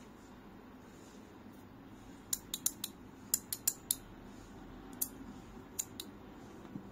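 Three-body cube slider fidget being worked by hand: its parts click sharply as they are slid and shifted, in quick runs of three or four clicks starting about two seconds in, then a few single clicks near the end.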